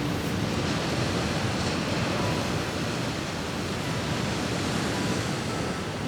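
Steady wash of sea surf with wind, an even rushing noise that holds at one level throughout.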